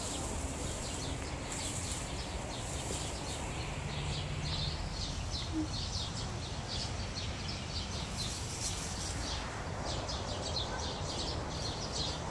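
Small birds chirping in quick, repeated high notes, densest about eight seconds in, over a steady low rumble.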